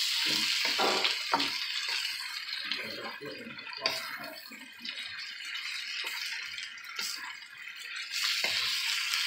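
Diced celery and onion sizzling steadily as they sauté in butter and oil in a frying pan, with a wooden spatula stirring and tapping against the pan a few times.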